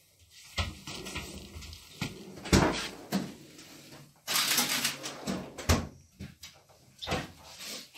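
Handling noises in a small room: a scatter of sharp knocks and bangs, the loudest about two and a half seconds in, with a rough rustle lasting about half a second just past the middle.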